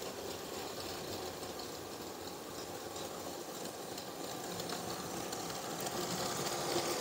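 Battery-powered LEGO train's small electric motor whirring and its wheels clicking over the plastic track, growing louder near the end as the train passes close by.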